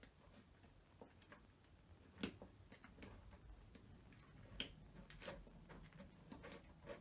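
Faint, irregular light clicks and taps of small wires and plastic connectors being handled and pushed through a hole while a wiring harness is threaded in; one sharper tap about two seconds in.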